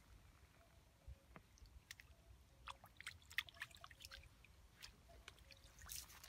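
Faint drips and light splashes of pond water as a small fish is let go by hand in the shallows, followed by a wading step in shallow water near the end.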